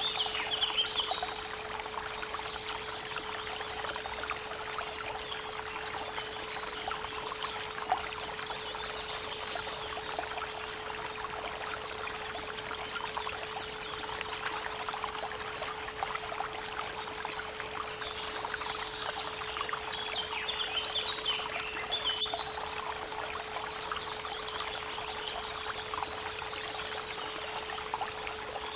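Creek water running steadily, mixed with a steady 432 Hz pure tone. Birds chirp now and then, in short runs of high notes several times.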